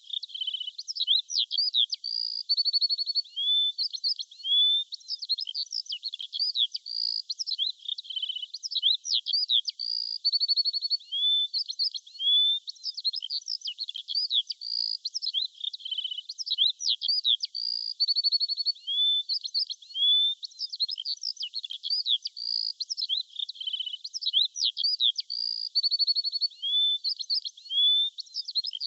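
Songbirds chirping and twittering in a dense chorus of quick, high-pitched calls and short rising and falling whistles. The same stretch of birdsong repeats about every eight seconds: it is a loop.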